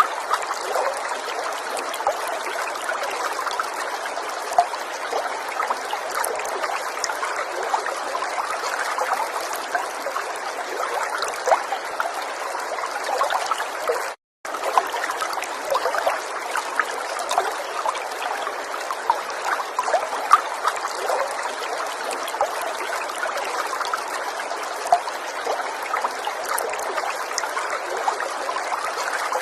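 River water running and trickling, a steady rush full of small splashing plinks. About halfway through it drops out to silence for a split second, then carries on unchanged.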